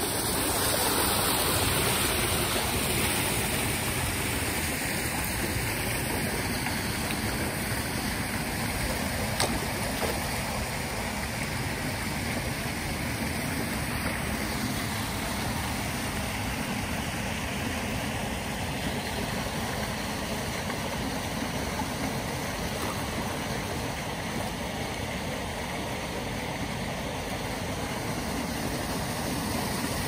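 Shallow stream water running steadily over a rocky bed, an even wash of water noise.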